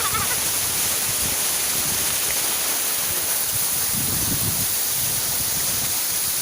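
Waterfall rushing steadily: a constant roar of falling water.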